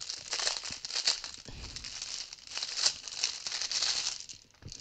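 Thin clear plastic bag crinkling and rustling as hands work a bundle of plastic transfer pipettes out of it. The crinkling dies away shortly before the end.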